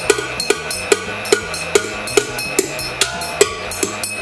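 Background music with a steady drum beat, about two to three beats a second, over held synth-like tones.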